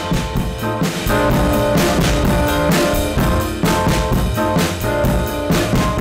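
A drum-bus recording played back through the Audio-Scape V-Comp+, an STA-Level-style variable-mu compressor. It is driven hard enough that the drums break up and distort, and held pitched notes sound along with the steady beat.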